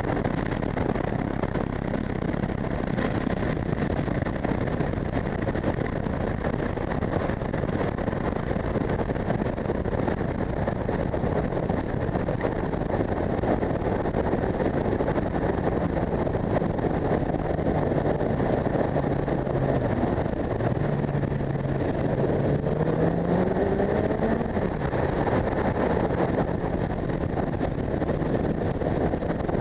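Motorcycle riding at road speed, heard from on the bike: a steady rush of wind over the microphone with the engine note underneath. About three-quarters of the way through, the engine note climbs in pitch in steps as the bike accelerates.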